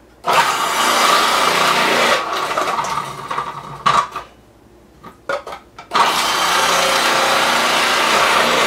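Food processor grating potatoes: the motor runs with the grating disc shredding potato chunks pushed down the feed chute for about three and a half seconds, then stops. A few knocks follow as the chute is reloaded, and it runs again from about six seconds in.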